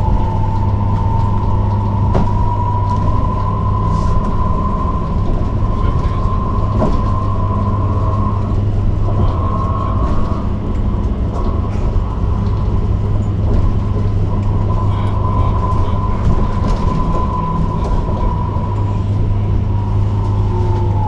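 Electric bus traction motor whining at one steady high pitch over the low rumble and hum of the ride; near the end the whine starts to fall in pitch as the bus slows.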